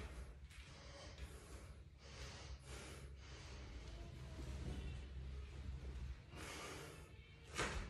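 A person breathing hard while doing barbell back squats: a run of forceful breaths in and out between reps, with a sharper, louder breath near the end.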